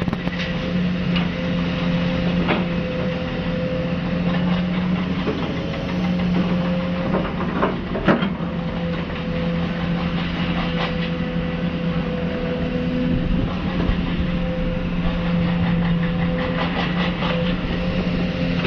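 Heavy construction machinery engine running steadily, a constant drone, with scattered metallic clanks and a sharper knock about eight seconds in.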